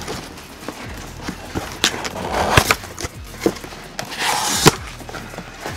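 A cardboard box being opened and handled: scattered sharp knocks and clicks, with two longer rasping sounds, one about halfway through and a louder one near the end.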